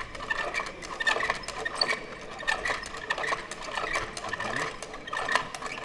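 Hand-spun model rope-making mechanism being turned, its gears clattering with rapid, irregular clicks.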